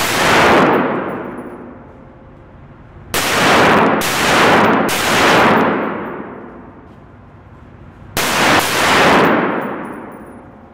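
Rifle shots from a carbine, each followed by a long echoing tail off the range walls. One shot comes at the start, three about a second apart around three seconds in, and a quick pair near eight seconds in.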